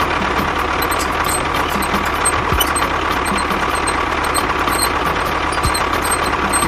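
A small engine or motor running steadily at idle, with a light regular ticking about three times a second.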